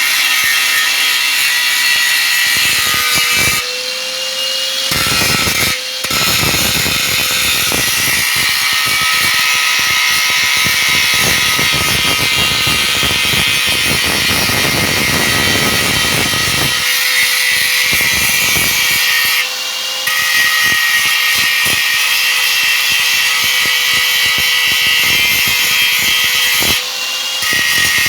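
Electric grinder grinding down a welded seam on a metal wok, running steadily with a high whine. The grinding noise is heavier through the middle, and it eases off briefly a few times as the disc lifts off the metal.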